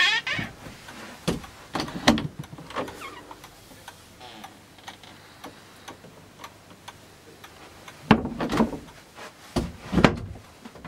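Interior doors and handles being worked: a brief squeak at the very start, then sharp knocks and clicks, a group about two seconds in and two louder groups near the end.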